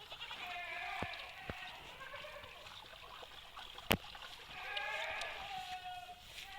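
Goats bleating: two long wavering calls, one near the start and one about two-thirds through, with a few light clicks and a single sharp knock just before the second call.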